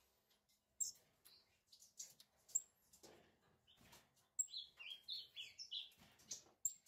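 Lazuli bunting nestlings begging while being hand-fed from tweezers: faint, short, high chirps, then a quick run of falling chirps about four and a half seconds in.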